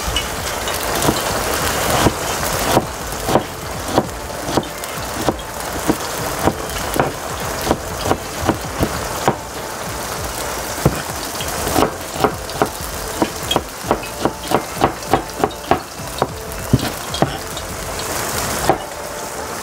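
Cleaver-style kitchen knife chopping red onion, then green pepper, on a plastic cutting board: sharp knocks of the blade on the board, a few a second, coming faster after about twelve seconds, over a steady hiss.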